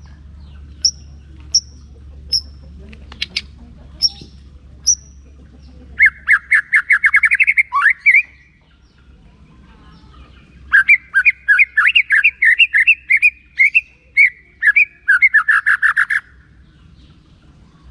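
White-rumped shama singing: a few sharp, high single chirps under a second apart, then a rapid run of fast-repeated notes lasting about two seconds, and after a short pause a longer, varied run of quick notes lasting about five seconds.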